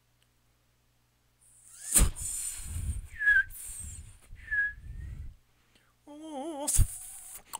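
Solo voice using contemporary extended techniques, marked strained, pressured, laboured and forced. After a near-silent opening comes a sudden hard attack, then rough, pressed breath noise with two short high squeaks. Near the end a wavering pitched vocal tone starts and is cut by a sharp click.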